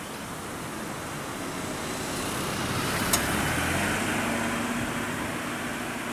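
A road vehicle passing, its noise building to its loudest around the middle and then fading, over a steady background hiss. A single sharp click comes about three seconds in.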